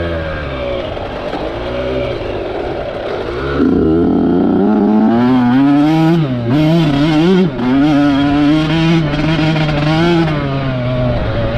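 Small off-road racing engine heard from on board, running at a moderate pitch. About three and a half seconds in it revs harder, then its pitch rises and falls quickly with the throttle, with a brief dip in the middle.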